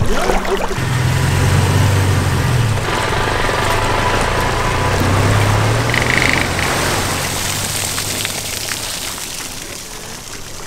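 An engine running with a steady low drone that shifts in pitch a few times and fades toward the end, under a loud steady hiss.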